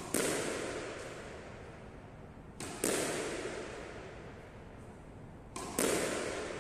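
Squash ball struck by a racket and hitting the wall, three times about three seconds apart. Each is a quick double crack, the second louder, with a long echo dying away in the court.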